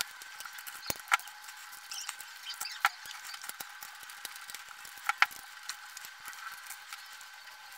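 Small screwdriver working screws out of a projector's metal-and-plastic LCD and prism assembly: scattered light ticks and scrapes with a few sharper clicks.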